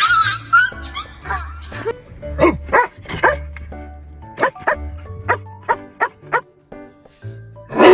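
Two runs of short, sharp barks, about three a second, with a wavering cry at the start and a loud burst near the end, over background music with a steady bass beat.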